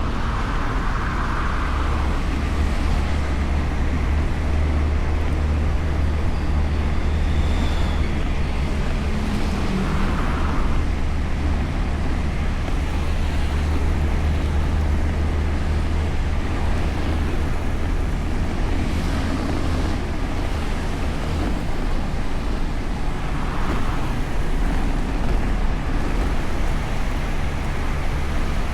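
Steady wind rumble on a bike-mounted action camera's microphone while riding a Honda Beat scooter, with road and traffic noise throughout.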